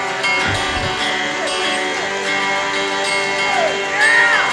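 Acoustic guitar strumming in a song, between sung lines.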